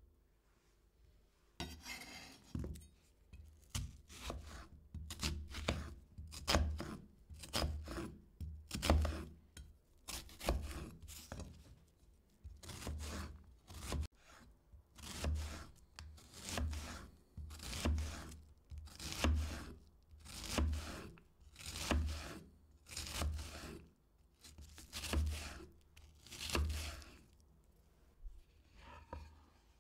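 Kitchen knife slicing through food onto a cutting board in slow, even strokes, about one a second. Each stroke is a scraping rasp with a soft thud. The strokes start a couple of seconds in and stop shortly before the end.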